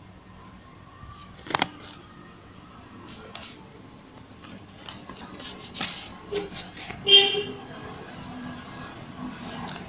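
Cloth being flipped and smoothed on a table, with scattered light rustles and small knocks. A short, loud, pitched toot sounds about seven seconds in.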